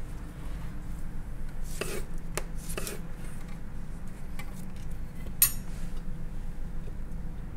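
Chef's knife cutting through a dragon fruit onto a wooden cutting board: a few short knocks about two to three seconds in, then one sharp click a little past halfway, over a steady low hum.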